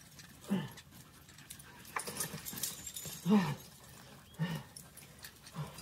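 A dog whining in short whimpers that drop in pitch, about four of them; the one a little past the middle is the loudest.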